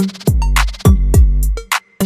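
Background music with a drum-machine beat: deep bass kicks that slide down in pitch, with sharp snare and hi-hat hits.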